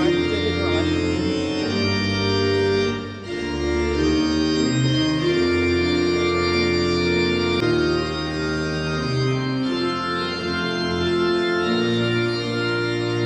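Organ music: slow, sustained chords with a moving bass line.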